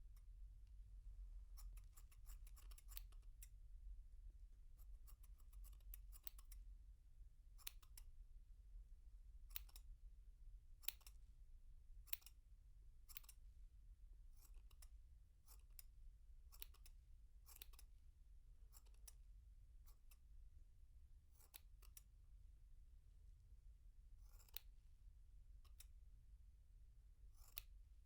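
Hair clippers snipping: many short, separate cuts at an irregular pace, some in quick runs of several snips. Faint, heard from a medium distance.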